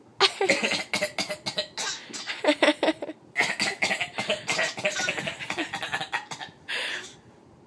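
A young child and a man coughing back and forth at each other: two long runs of quick, repeated coughs of about three seconds each, then one last cough near the end.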